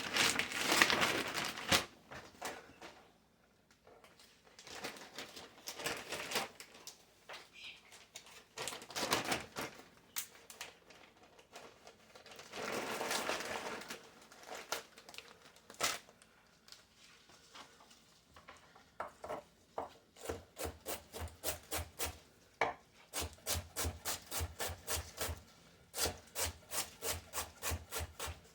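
Knife working through broccoli stalks and leaves on a wooden cutting board, with rustling of leaves. In the last third it settles into steady chopping strokes, about two to three a second.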